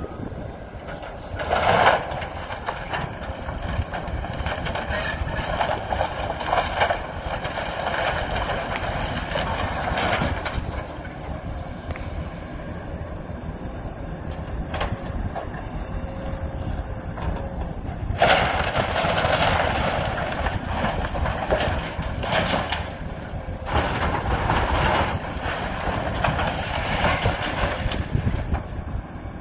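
Hydraulic excavator demolishing a wooden grain elevator: its diesel engine runs steadily underneath while timbers crack and debris crashes down in several long, loud spells. The biggest come about two seconds in, again from about six to ten seconds, and near the middle and the end.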